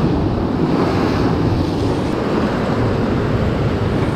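Heavy sea swells breaking against shoreline rocks: crashing surf and rushing white water, a loud, steady wash with wind buffeting the microphone.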